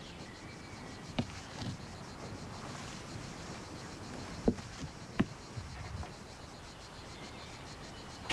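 Quiet outdoor ambience with a low, even hiss, broken by a few short, sharp knocks; the loudest two come about four and a half and five seconds in.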